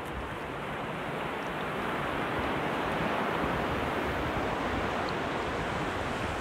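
Sea surf breaking and washing in, a steady rushing that swells over the first few seconds, with some wind on the microphone.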